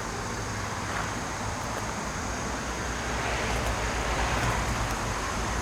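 Steady road-traffic noise, a low rumble that swells slightly about three seconds in as a vehicle passes.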